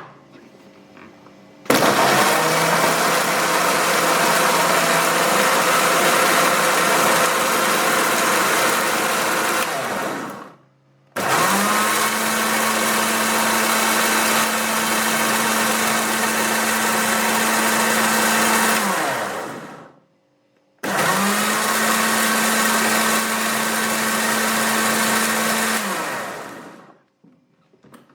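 Electric kitchen blender grinding spice paste, switched on three times in runs of about eight, eight and six seconds. Each run starts abruptly, holds a steady motor whine, then spins down when switched off.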